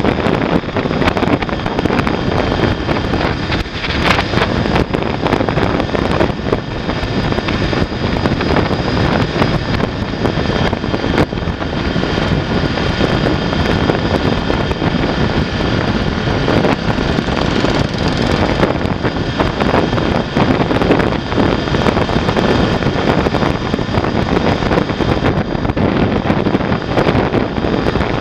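Steady wind rushing over the microphone of a motorcycle-mounted camera, with the Honda VFR800's V4 engine running evenly at cruising speed underneath.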